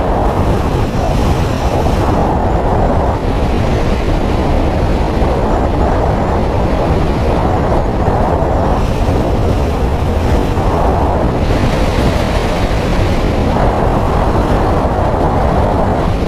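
Steady rumble and rush of a moving road vehicle: tyre, engine and wind noise at a constant speed.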